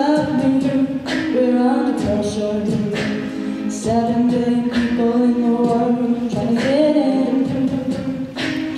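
A cappella group singing sustained backing chords that shift every second or so, with a sharp percussive beat about once a second.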